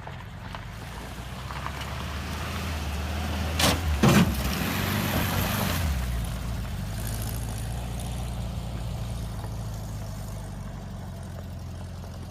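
VW bus engine running with a steady low hum, building up over the first few seconds. Two sharp knocks come about four seconds in, and around six seconds in the engine note drops and settles.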